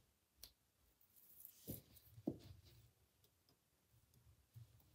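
Faint clicks and light knocks of model railway track being handled and laid down on the floor, with a soft rustle and one sharper knock about two seconds in.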